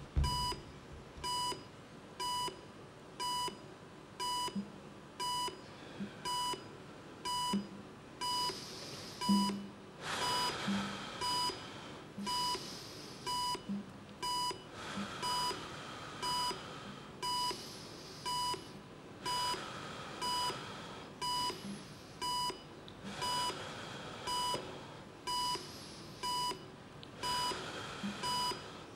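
Heart-rate monitor beeping once a second, a short high beep on each heartbeat at a pulse of about 61 a minute. A soft low drum thump, a conga struck with a mallet, falls with many of the beats. Swells of hiss rise and fade every few seconds.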